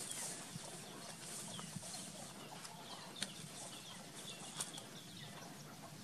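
Outdoor ambience of bird calls, short chirps and clucks repeating over a steady high hiss, with two sharp clicks about three and four and a half seconds in.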